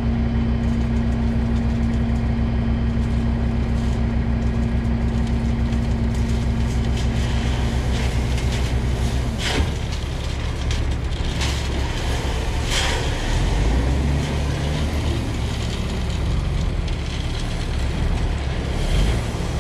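Diesel dump truck engine running steadily as the truck creeps forward, tipping its load out of the open tailgate to spread it. About halfway through the engine note drops and changes, and a few sharp clatters stand out, the loudest at that moment.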